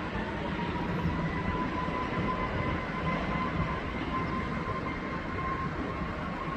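Jet airliner engines running with a steady rushing noise and a thin, high whine that slowly rises in pitch.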